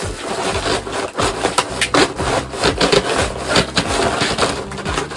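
Plastic bubble-wrap packaging rustling and crinkling as it is handled and pulled open, with irregular crackles throughout.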